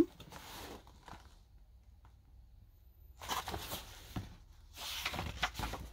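Pages of a picture book being turned and the book handled: soft paper rustling in two short spells in the second half.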